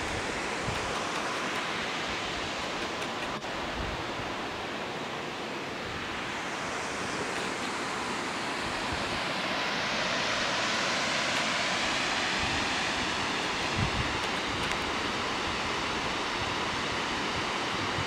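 Waterfall rushing steadily, growing louder and brighter about halfway through, with wind buffeting on the microphone.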